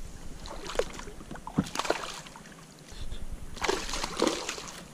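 A hooked bass thrashing at the water's surface, splashing in several short bursts, with the largest about three and a half seconds in.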